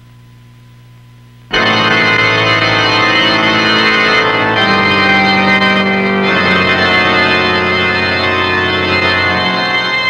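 Organ music accompanying a silent film. After a faint low hum, sustained organ chords come in suddenly about a second and a half in and shift to new chords a couple of times.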